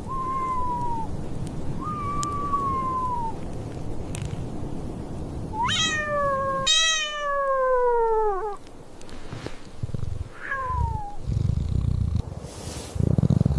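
Cats meowing: a few thin, falling mews, then two longer, louder meows about six to eight seconds in, over a steady wind-like rushing that cuts off abruptly. Low, pulsing purr-like rumbles follow near the end.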